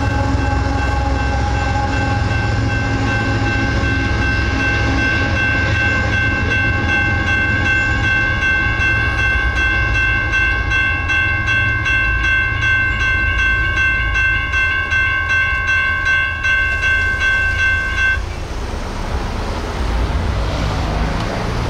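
Railroad grade-crossing bells ringing steadily over the low rumble of a passing freight train's rear diesel locomotive. The bells cut off about three-quarters of the way through as the crossing clears, leaving road traffic noise.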